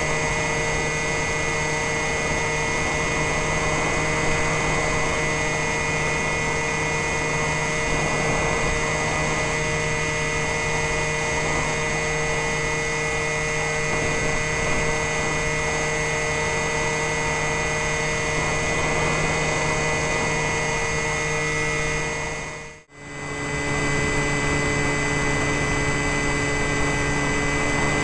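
Electrafun RC plane's electric motor and propeller running in flight, heard from the plane's onboard camera: a steady whine of several held tones over a rush of noise. About 23 seconds in the sound dips away for about a second and comes back with a changed pitch.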